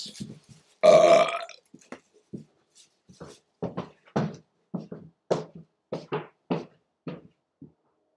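A man's loud burp about a second in, followed by a run of short, quieter sounds at about two a second.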